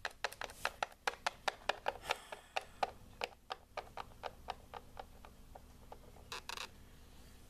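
Plastic toy figurine tapped along a wooden tabletop as it is hopped away: rapid light clicks, several a second, that thin out about five seconds in, with a brief rubbing hiss near the end.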